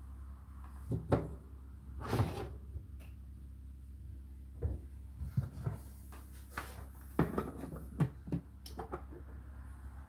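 Irregular plastic clunks and knocks as the lint filter is pulled out of the door opening of an Indesit condenser tumble dryer, the loudest about one and two seconds in, over a steady low hum.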